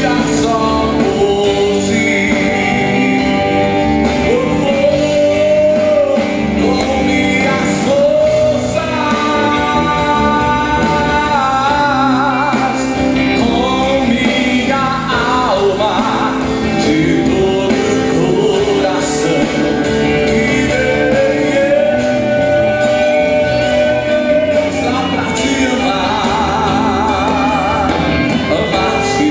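Live Christian gospel song: a man sings lead into a microphone over a band with electric guitar, with women's voices singing along near the end.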